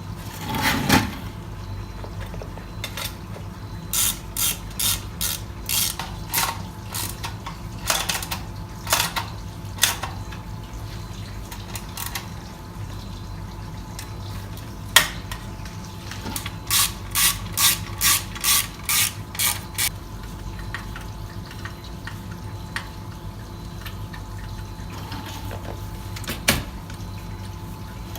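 Socket ratchet worked in short strokes: two runs of rapid clicking bursts, about three a second, with scattered single metallic knocks from tools and parts between them.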